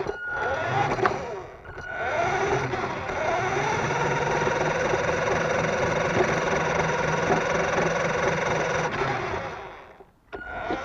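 Electric drive motor and gearbox of a radio-controlled Mini Cooper S model car whining under power. There are two short bursts first, then the whine rises in pitch and holds steady for about five seconds before dying away near the end.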